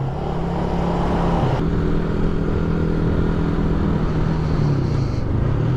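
Motorcycle engine running steadily at cruising speed under wind and road noise. About a second and a half in the sound changes abruptly, and a steady, lower engine hum carries on.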